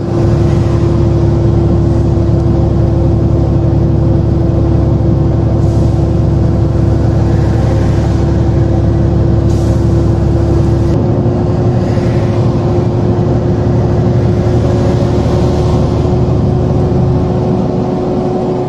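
Steady engine drone and tyre noise inside a vehicle cab at highway speed, with a constant hum over a low rumble.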